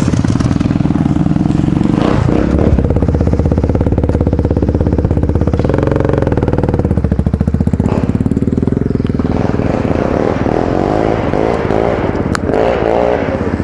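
ATV (quad bike) engine running under way on a dirt forest track, heard close up from the bike itself, its revs rising and falling as it is ridden. A single sharp click comes near the end.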